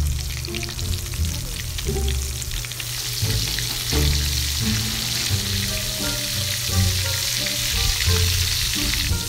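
Breaded chicken pieces deep-frying in hot oil in a wok, a steady sizzle of bubbling oil that grows louder about three seconds in as more pieces go into the pan.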